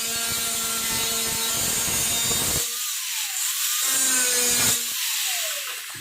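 A power cutting tool cutting through the rusted sheet metal of a van's lower mid quarter panel. It runs for about two and a half seconds, then stops and winds down with a falling whine. It cuts again briefly about a second later and winds down again near the end.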